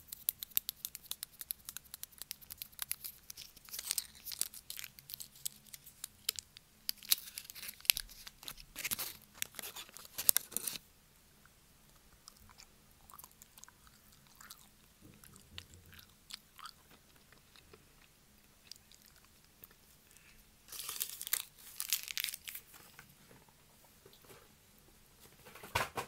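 Close-up chewing and crunching of milk chocolate: crisp crackles come thick for the first ten seconds or so, thin out for a while, then come thick again briefly near the end.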